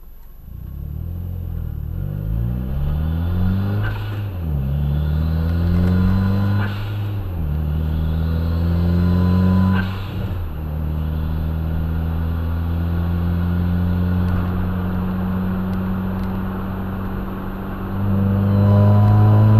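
Turbocharged car engine accelerating hard through the gears, heard through a dash cam's microphone inside the cabin: the pitch climbs and drops back at shifts about 4, 7 and 10 seconds in, holds steady for several seconds, then climbs again near the end. The owner hears a trumpet-like noise at full throttle once boost passes about 8 psi since fitting a front-mount intercooler, and suspects a boost leak.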